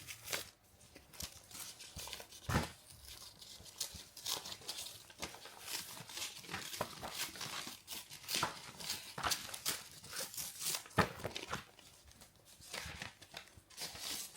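Paper packaging being torn open and handled: irregular crinkling, tearing and small ticks, with a few sharper clicks.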